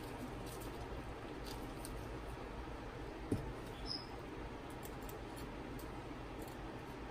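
Hand screwdriver tightening the screws on a resin printer vat's FEP clamping frame: faint scattered ticks and squeaks over a steady low hum, with one sharp click about three seconds in.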